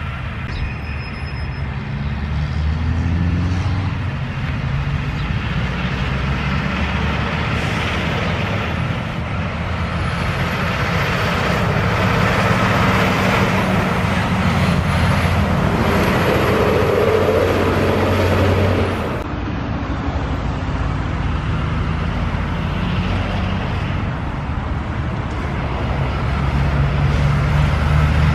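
Heavy diesel logging trucks passing on the road, their engines running steadily under a haze of tyre and traffic noise from passing cars.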